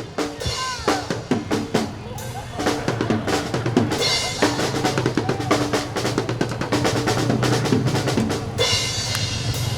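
Live drum kit solo: a dense run of rapid hits and fills, easing briefly about two seconds in before building up again.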